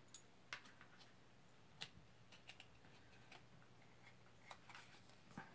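Faint, irregular small clicks and taps of tarot cards being handled and turned over, about a dozen spread over several seconds.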